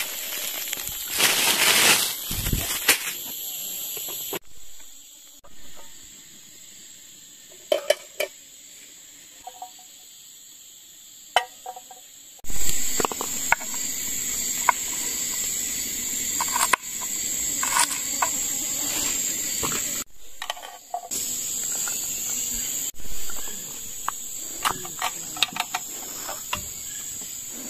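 Steady high-pitched chirring of forest insects such as crickets, with a couple of loud rustling noise bursts near the start and scattered small clicks and knocks.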